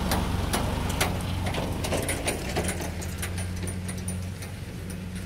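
Rice combine harvester's engine running steadily at a distance, a low even hum, with scattered sharp clicks over it in the first three seconds.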